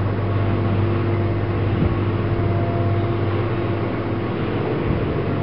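A steady low mechanical hum with a few faint held tones above it, unchanging throughout.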